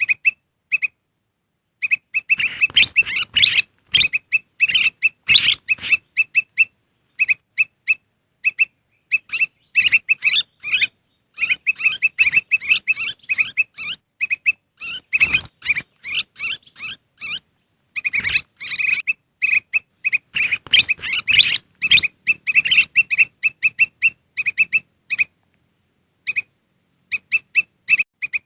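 Kutilang emas bulbuls calling: runs of quick, repeated high chirps, broken by busier flurries where several birds chatter at once, used as a lure call to draw in wild birds of the same kind.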